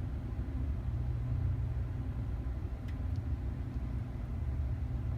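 Steady low rumbling drone in a heated glue booth, with a couple of faint ticks about three seconds in.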